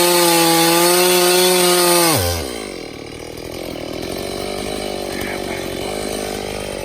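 Stihl MS391 two-stroke chainsaw running at full throttle in a steady high whine, cutting into a hickory trunk; about two seconds in, the engine speed falls quickly away to a low idle.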